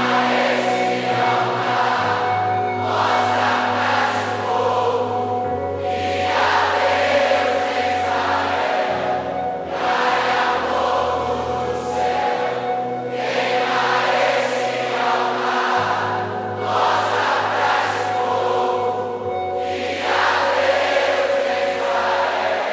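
Worship music with a choir singing over sustained bass notes that change every two seconds or so.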